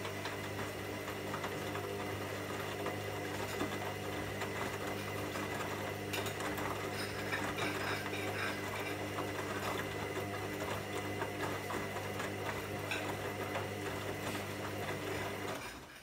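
Hoover front-loading washing machine tumbling its drum in a cotton 40 °C main wash: a steady motor hum with wet laundry and water sloshing and patting inside, the water deeper with the Aqua Plus option. The motor stops near the end as the drum pauses between turns.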